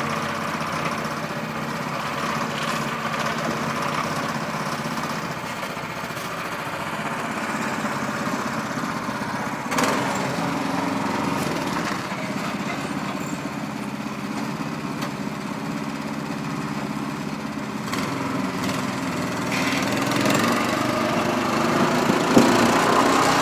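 Small petrol engine of a two-wheel walking tractor (motocultor) hitched to a trailer, running steadily. There are a couple of sharp knocks, and it grows louder near the end as the tractor pulls away with the trailer.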